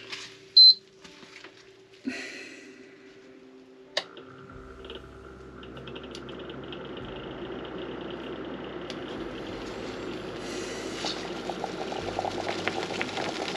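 A short, high beep near the start and a sharp click about four seconds in, then the steady noise of a pot of water heating on the stove, growing slowly louder.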